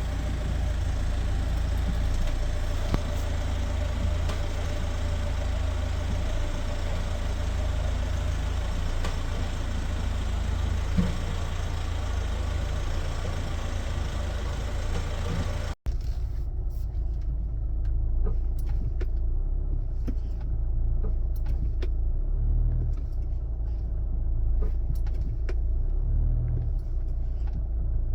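Hyundai Santa Fe in slow traffic: a steady low rumble of road and engine noise, with a couple of short sharp knocks. These are taken for the front-left knock that sets in as the car comes to a full stop, whose cause the owner has not found. About halfway through the sound cuts out briefly, then returns as a quieter low rumble with light clicks.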